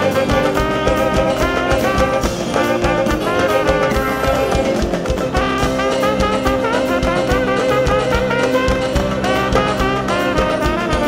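Live band playing an upbeat instrumental: violins and brass carrying the melody over a steady beat from a drum kit and a hand drum, with electric guitar and bass.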